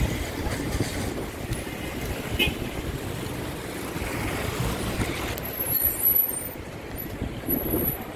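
Road traffic passing: a car drives by close about four seconds in, over a steady low rumble of traffic. A brief high tone sounds about two and a half seconds in.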